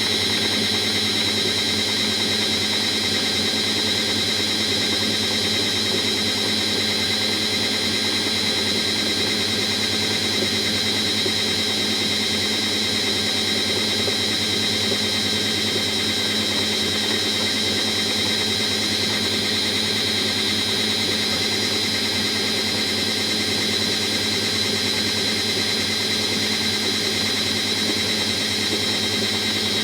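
Washing machine drum running steadily with a constant high-pitched whine over the mechanical running noise. The owner suspects a worn drum bearing.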